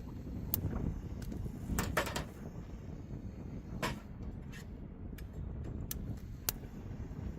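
Strong wind buffeting with a steady low rumble, broken by irregular sharp knocks and rattles.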